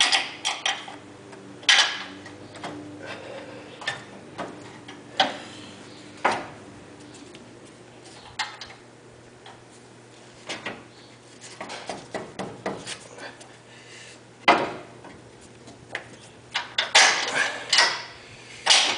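Scattered metal clinks and knocks of steel bolts being pushed through a steel steering brace and the frame rail, with a cluster of them near the end.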